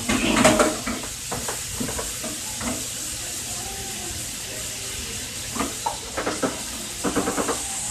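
Sliced onions and red peppers sizzling steadily as they sauté in a large metal pot, with a wooden spoon knocking and scraping against the pot about half a second in and several more times near the end.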